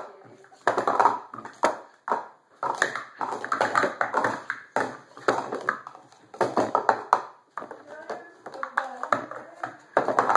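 Plastic sport-stacking cups clacking and sliding against one another as they are quickly stacked up and brought down on a mat. The clatter comes in bursts of rapid clicks with brief pauses between them.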